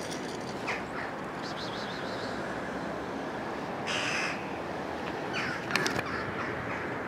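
Harsh animal calls over a steady outdoor background noise: a brief one near the start, the loudest, lasting about half a second, about four seconds in, and a shorter pair with a few sharp clicks near the end.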